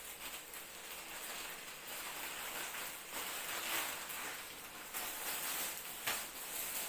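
Plastic parcel packaging crinkling and rustling as it is torn open and the contents pulled out, with sharper crackles about five and six seconds in.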